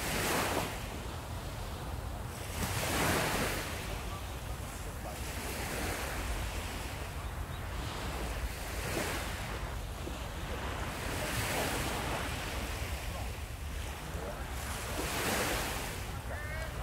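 Surf washing onto a sandy beach, swelling and falling back every few seconds, with wind buffeting the microphone.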